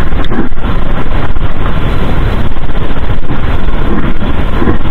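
Shallow stream water rushing loudly right at the microphone, a dense steady noise with no distinct events.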